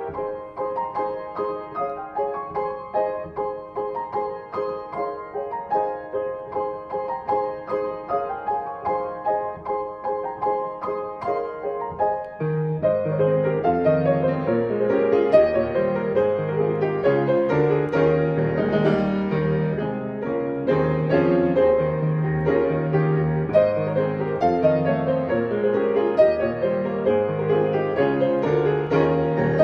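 Piano playing a gentle instrumental piece, with notes struck in an even pulse of about two a second. About halfway through it grows fuller and louder as low bass notes come in.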